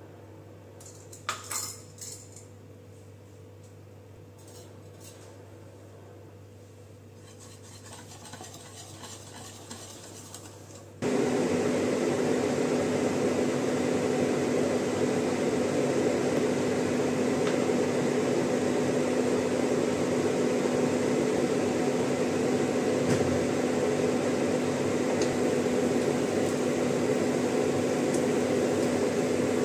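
A few light clinks of utensils against a mixing bowl near the start. About eleven seconds in, a loud, steady mechanical hum with a low drone sets in abruptly and runs on unchanged.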